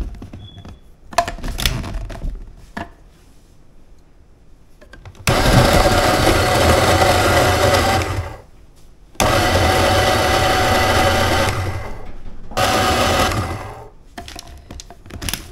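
Electric food processor cutting cubes of cold butter into flour, sugar and salt for pie crust, run in three pulses of a few seconds each with short stops between. Before the motor starts, a few plastic clicks as the lid and feed tube are fitted.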